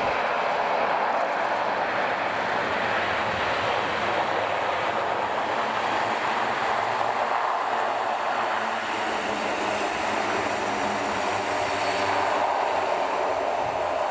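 Airbus A400M's four Europrop TP400 turboprop engines and eight-bladed propellers running steadily as the aircraft rolls out along the runway after landing, a continuous even drone that holds its level throughout.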